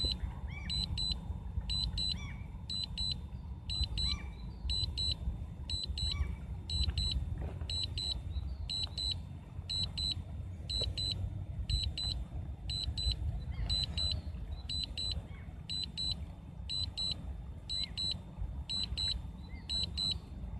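Drone remote controller sounding its return-to-home alert: a quick double beep, high-pitched, repeating about once a second, over a steady low rumble.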